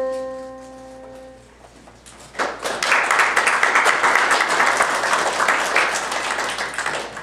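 A piano's last chord rings out and dies away, then an audience applauds, starting about two and a half seconds in and tailing off near the end.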